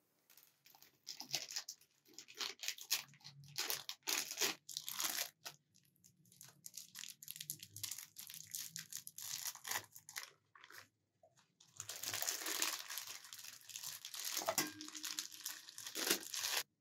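Thin clear plastic bag crinkling and rustling in the hands as it is pulled open and peeled off a block of food, in irregular bursts. A denser stretch of crinkling runs through the last few seconds and stops abruptly near the end.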